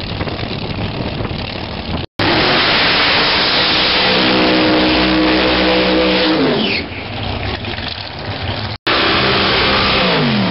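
Supercharged drag-racing cars doing burnouts: a loud rush of spinning-tyre and engine noise with the engine held at high revs, then the revs falling off as the throttle comes off. The sound cuts abruptly twice between cars, about two seconds in and near nine seconds, and a second engine's revs drop away near the end.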